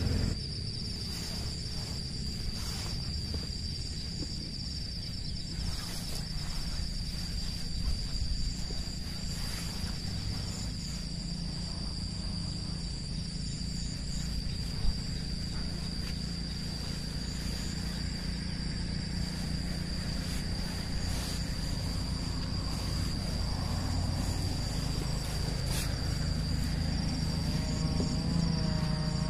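Insects trilling in one steady, unbroken high-pitched note over a low, even rumble of outdoor background noise.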